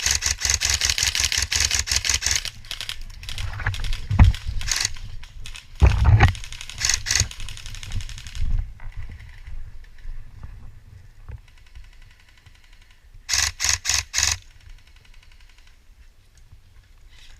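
Airsoft guns firing: a long rapid burst of shots over the first two and a half seconds, scattered single shots and a few dull thumps over the next several seconds, then a quick run of four shots about 13 seconds in.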